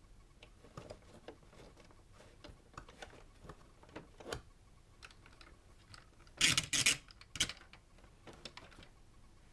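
Light clicks and scratches of fingers handling a toy truck's cardboard and plastic display box. About six and a half seconds in there is a louder scraping rustle lasting about half a second, and a shorter one a second later.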